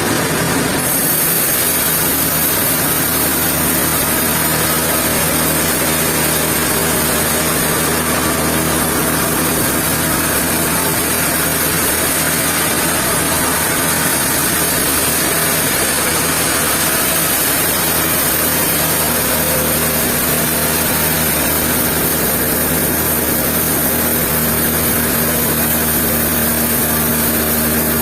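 Sawmill machinery running steadily with a low engine-like hum; a high hiss comes in about a second in and holds.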